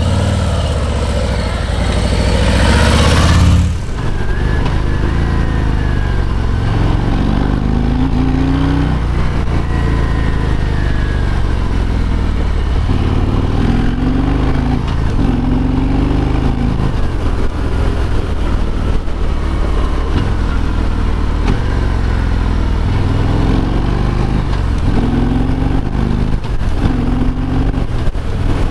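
Harley-Davidson Road King Special's Milwaukee-Eight V-twin engine. It grows louder as the bike approaches, cut off suddenly about four seconds in. After that it is heard from the rider's seat, the engine note rising several times as the bike accelerates along.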